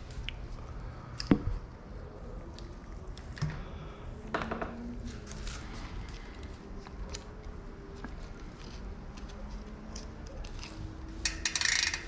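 Small metallic clicks and rattles of a bike chain and SRAM XX1 rear derailleur being handled by gloved hands. There is a sharp click about a second in and a longer, louder rattle near the end.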